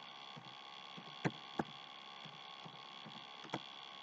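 Three sharp computer keyboard key clicks, two close together about a second in and one more near the end, over a steady electrical hum.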